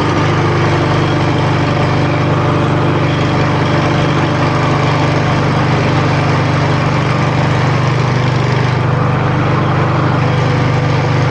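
Troy-Bilt walk-behind lawn mower engine running steadily at an even speed just after being pull-started, its freshly cleaned carburetor now letting it run after a no-start fault.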